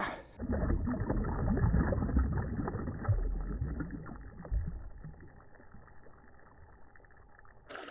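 Low sloshing and rumbling of river water against a kayak hull. It is strongest for the first few seconds, then dies away to faint.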